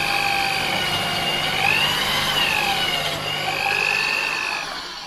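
Corded DeWalt drill running with a steady motor whine, boring a pocket hole through timber with a pocket-hole drill bit in a jig. The pitch climbs and dips briefly about two seconds in, then the motor winds down near the end.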